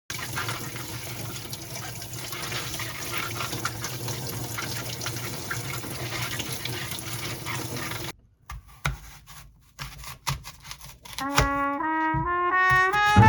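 Steady hiss of running water that cuts off suddenly about eight seconds in, followed by a few light clicks and knocks. Music with clear notes comes in near the end.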